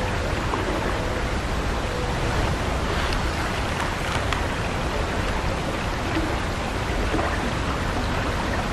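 Steady rushing of flowing creek water, an even hiss with a low rumble and no breaks, with a few faint ticks around the middle.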